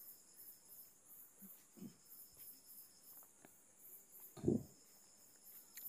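Quiet background with a faint, steady high-pitched tone throughout, and one short low sound about four and a half seconds in.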